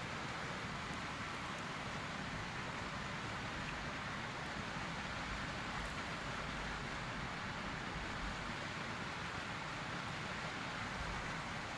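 Steady outdoor background hiss with a low, flickering rumble.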